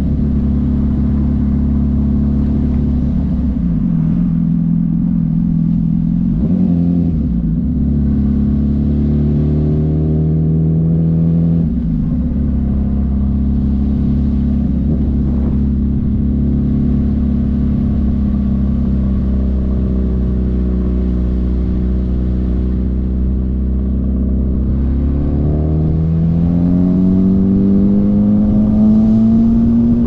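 A 2005 Yamaha YZF-R1's inline-four engine, straight-piped and loud, on the move. Its pitch drops and picks up again a few times early on, holds steady for a long stretch, then climbs as it pulls harder near the end.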